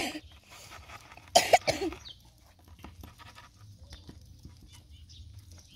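A person gives one short, loud cough-like burst of voice about a second and a half in. After it come faint ticks and rustles of hands working fish out of a mesh fish trap.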